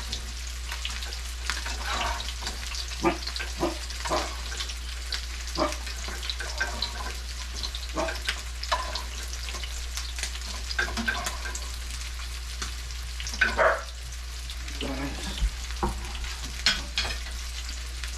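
Fish frying in hot oil, sizzling steadily, with frequent sharp pops and clicks as the oil spatters and a utensil works in the pan.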